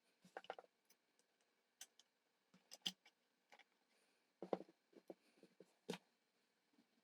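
Faint, scattered clicks and taps of filter capacitors being handled and set into place on an amplifier's power supply circuit board, roughly a dozen irregular small knocks with the loudest clusters about half a second, three, four and a half and six seconds in.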